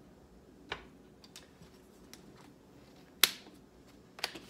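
Sharp clicks and taps of a measuring spoon and spice jar against a glass mixing bowl as paprika is measured out: about five separate clicks, the loudest about three seconds in.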